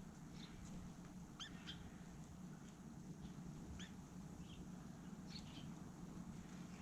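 Small garden birds giving short, high chirps, about eight scattered calls, over a faint steady low hum.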